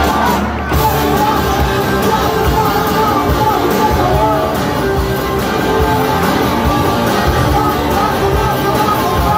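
Rock band playing live and loud, with electric guitars, drums and singing, heard through a phone microphone from within an arena crowd.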